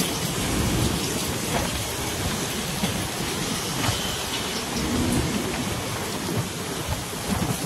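Strong sandstorm wind rushing and buffeting the microphone: a continuous noisy rush with gusty low rumbling.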